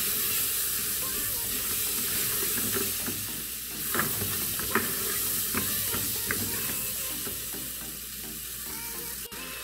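Onion, tomato and bell pepper sizzling gently in olive oil over low heat in an aluminium pressure cooker, stirred with a silicone spatula that scrapes and taps against the pot now and then.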